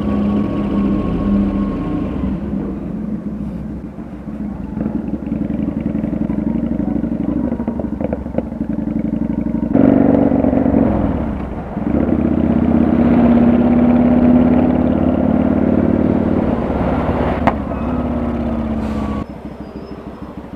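Kawasaki VN900 cruiser's V-twin engine running while riding, its pitch falling and rising as it slows and speeds up. About nineteen seconds in it drops to a quieter, lower running.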